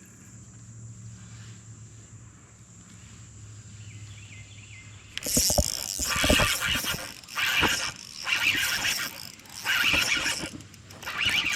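Fishing reel being cranked in several quick spells, a rough mechanical whirring with clicks, starting about five seconds in after a quiet stretch with a faint low hum.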